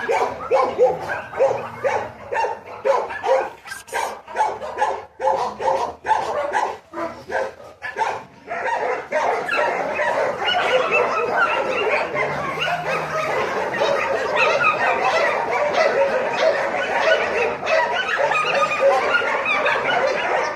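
German Shepherd-type dog barking in short repeated barks, about two to three a second, then from about nine seconds in a denser, unbroken run of barks.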